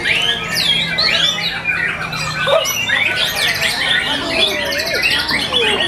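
White-rumped shamas singing in a contest chorus: many birds at once, with overlapping loud whistles, sweeping notes, rapid trills and harsh squawky calls.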